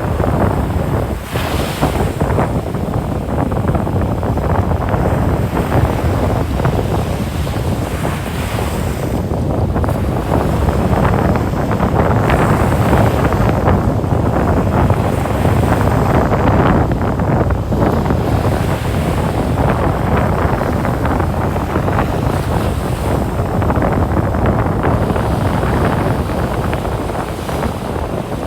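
Ocean waves washing onto a sandy beach, swelling and falling, with wind buffeting the microphone.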